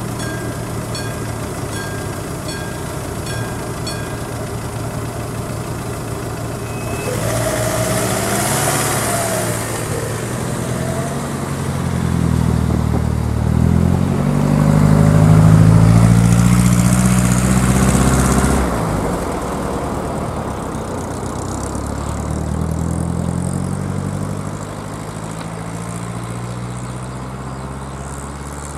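A level crossing's classic warning bell rings over idling car engines and stops about four seconds in. The waiting cars then pull away and drive across the crossing one after another, loudest about halfway through as a car passes close.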